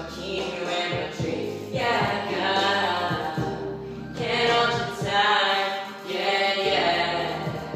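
A man singing into a handheld microphone over backing music, in several long phrases with held notes.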